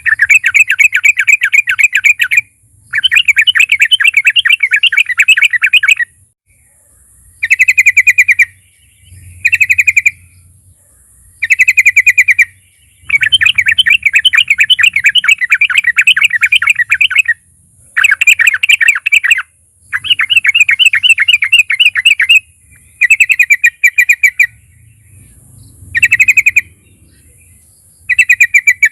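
Yellow-vented bulbul (trucukan) singing loudly. It gives a run of rapid chattering phrases, each lasting one to four seconds, with short pauses between them.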